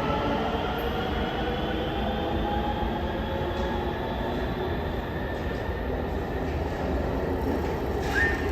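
Subway train running at the platform, its traction motors whining with slowly rising pitch over a rail rumble, as when a train gathers speed. A brief squeal comes near the end.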